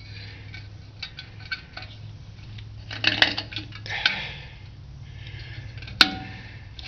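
Metal tools clinking and clanking against drum-brake hardware and springs, with a sharp ringing clank about six seconds in. A low steady hum runs underneath.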